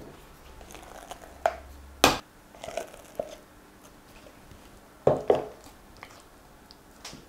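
Silicone spatula scraping whipped cream out of a plastic jug and folding it into a glass bowl of quark cream: soft scrapes and squelches with a few sharp taps of the spatula against the jug and bowl, the loudest about two seconds in.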